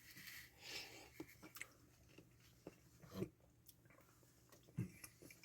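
Faint chewing of a mouthful of macaroni and cheese with chicken nuggets: soft, scattered mouth clicks and smacks, with a couple of slightly louder ones about three seconds in and near the end.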